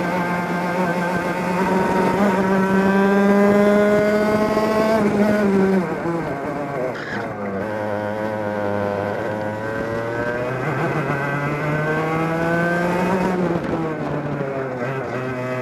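Two-stroke racing kart engine running hard, its pitch climbing slowly, then falling sharply about six seconds in as the kart slows for a corner. It climbs again, dips once more near the end, and picks up again.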